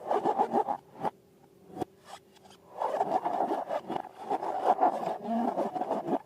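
Close-up rubbing and scraping as slime and balloons are handled: a quick run of strokes, a quieter lull after about a second, then dense, steady rubbing over the last few seconds.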